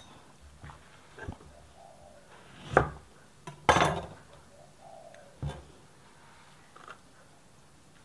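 A plastic bag rustled and handled in a plastic mixing bowl, in a few short bursts, the loudest about three and four seconds in.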